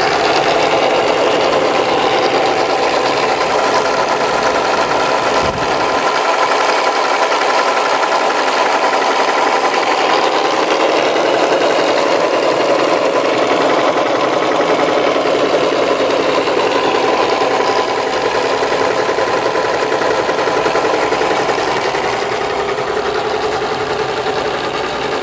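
Small DC electric motors and gear trains of a 1/6 scale Tiger I model's animated engine compartment running together, driving the cooling fans, fan gearbox and engine flywheel: a steady, loud whirring buzz. The lowest hum drops away about six seconds in.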